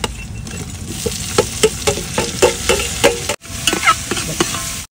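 Metal spoon stirring chopped tomatoes into frying onions in a metal pan, clinking and scraping against the pan about three times a second over a steady sizzle.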